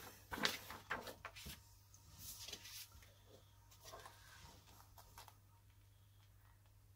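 Sheets of printer paper being handled and shuffled onto a cutting mat: faint rustles and light taps, most of them in the first two and a half seconds, over a low steady hum.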